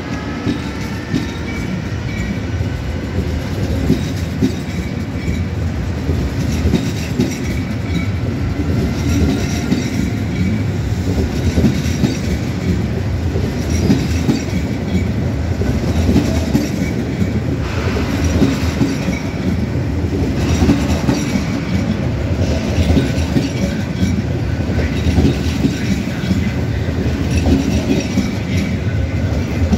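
Italo AGV high-speed electric train pulling out at low speed: a steady low rumble of wheels and running gear, with wheels clicking over rail joints and a faint thin squeal from the wheels.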